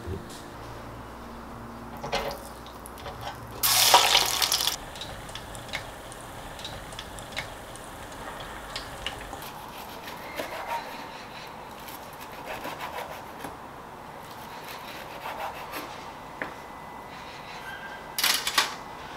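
Kitchen knife slicing a chicken cutlet on a wooden cutting board: small crunches and light taps of the blade on the wood. A louder rustling burst comes about four seconds in, and a short clatter near the end.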